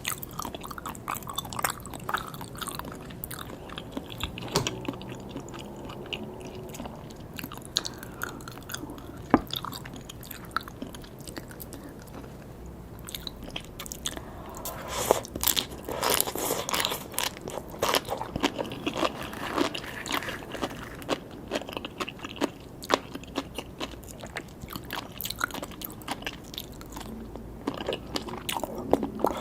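A person biting and chewing sea grapes and salmon sashimi: many short, sharp crunchy clicks and pops with wet chewing, busiest in the middle stretch.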